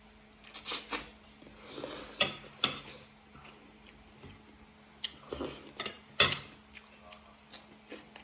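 Metal fork clinking and scraping on a ceramic plate of spaghetti, a few sharp clicks, with short bursts of noodles being slurped and chewed.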